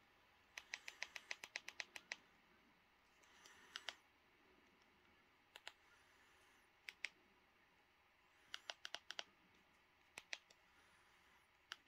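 Quiet, sharp clicks while a disc menu is stepped through: a quick run of about ten clicks starting about half a second in, then single clicks and short clusters of two to five spread through the rest.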